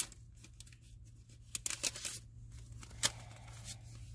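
Sheets of adhesive vellum paper being handled and shuffled, rustling with sharp crackles and clicks in clusters about a second and a half in and again near three seconds. A low steady hum runs underneath.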